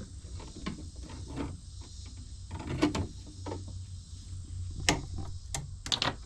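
Scattered sharp clicks and light knocks of hands working on wiring and a metal electrical box, the loudest about three seconds in and again about five and six seconds in, over a steady low rumble and a faint high hiss.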